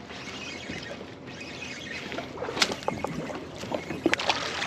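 Water splashing and lapping around a boat on the open water, with a few sharp clicks and knocks in the second half.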